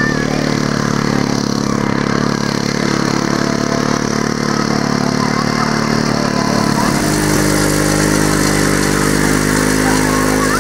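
Engine of a two-wheel walking tractor running steadily as it pulls a loaded trailer, its note shifting about seven seconds in.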